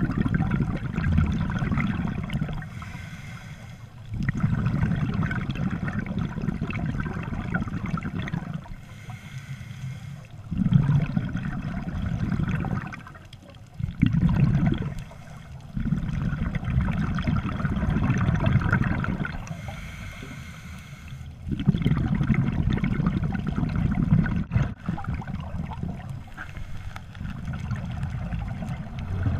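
Scuba diver breathing through a regulator underwater, in slow regular cycles: a short hissing inhale, then a longer rush and gurgle of exhaled bubbles.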